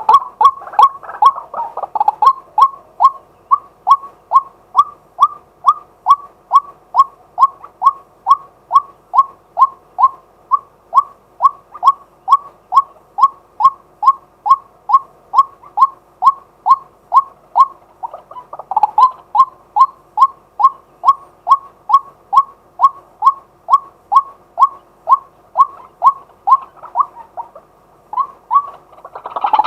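Male white-breasted waterhen calling a long, even series of short, repeated "kwak" notes, about two a second, with a brief break about two-thirds of the way through.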